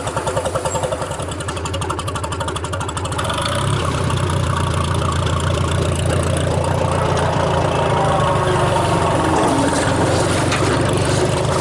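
Tractor engine running, picking up speed and getting louder about three and a half seconds in, then holding a steady higher speed.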